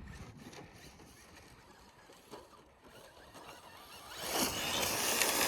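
Arrma Infraction 6S RC car driving through loose, rocky rough ground, its tires churning the dirt and gravel. It is faint at first, then grows louder about four seconds in as the car pushes through the rough stuff.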